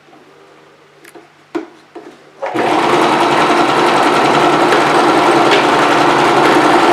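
Singer Promise 2 (1512) sewing machine starting up about two and a half seconds in and running steadily at speed as it stitches. Before it starts there are a few light clicks and knocks.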